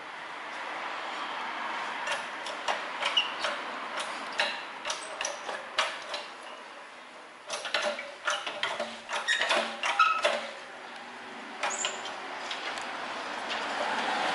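Irregular sharp metallic clicks and knocks from a steel steering knuckle being handled and set down on a pipe sleeve on a press bed, ready for its wheel bearing to be pressed out. The clicks come in clusters, with a quieter stretch in the middle.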